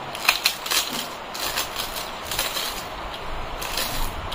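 Crisp papad (poppadom) crackling and snapping as it is crushed by hand onto rice, a quick cluster of sharp cracks in the first second and scattered crunches after.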